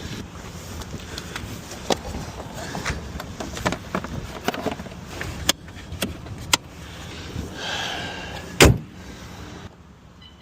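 Scattered clicks and knocks from handling parts inside a Mercedes-Benz car, a brief whirr shortly before the end, then one loud heavy thump like a car door shutting.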